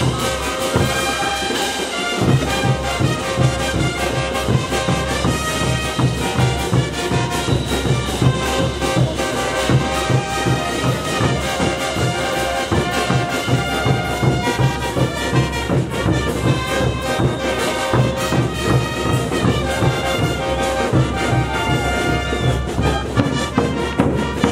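Brass band playing tinku dance music: massed brass over a steady, driving drum beat, which stops at the very end.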